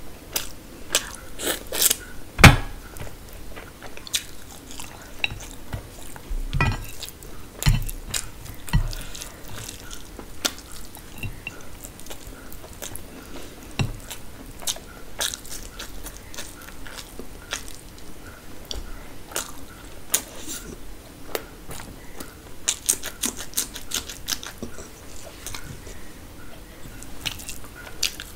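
Close-miked chewing and mouth sounds of someone eating chicken biryani and mutton curry by hand: many sharp wet clicks and crunches, with a few dull thumps, the loudest about two and a half seconds in.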